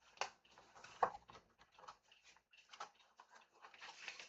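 Irregular light clicks, taps and rustles of packaging and parts being handled while unpacking, with a sharper tap about a second in.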